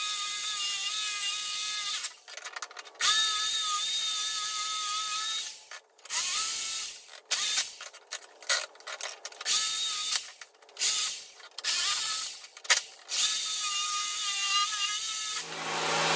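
Jigsaw cutting through a plastic subwoofer back panel, with a high-pitched motor whine and blade rasp in repeated bursts as the saw starts and stops. The middle bursts are short. Near the end it runs steadily at a lower pitch.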